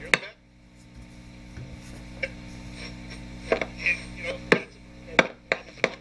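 Signal tracer's speaker playing the signal picked up at the grid of a 12BA6 IF amplifier tube: a steady mains hum with faint broadcast-station audio in it. Several sharp clicks and crackles, mostly in the second half, as the probe tip makes and breaks contact on the tube socket pin.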